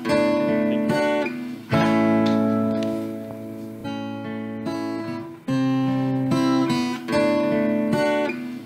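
Background music: strummed acoustic guitar chords, a new chord struck every second and a half to two seconds.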